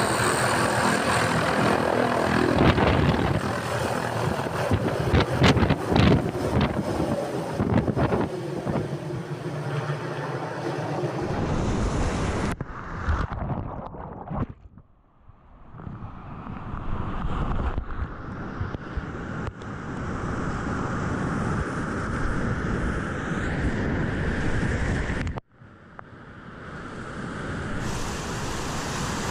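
A small turbine helicopter running close by with its rotor turning and wind buffeting the microphone, then, after sudden cuts, wind and water noise, and rushing whitewater around a kayak near the end.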